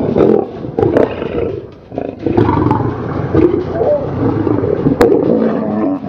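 Several lions fighting, with a continuous run of loud roars. There is a brief lull just before the two-second mark and a single sharp click about five seconds in.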